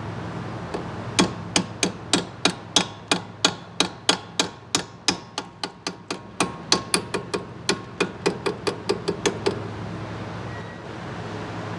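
Hammer striking metal in a rapid series of about two dozen blows, roughly three a second, which stop about nine and a half seconds in. A steady low hum runs underneath.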